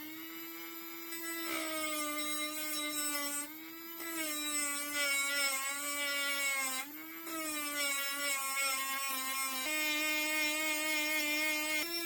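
DuroFort 8V cordless rotary tool running at high speed with a steady whine, grinding a steel drill bit. Its pitch sags and a gritty hiss rises each time the bit is pressed in, about three times, then climbs back when the load eases.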